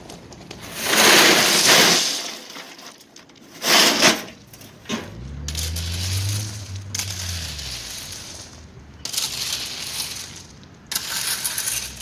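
River stones being poured and spread, clattering against each other in irregular bursts, loudest about a second in and again about four seconds in. A low hum rises and falls in the middle.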